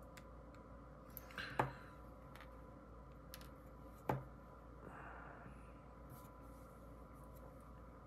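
Small parts of a fidget toy being handled and fitted together by hand: a couple of sharp clicks, about one and a half and four seconds in, with a few lighter ticks and a brief rustle between them.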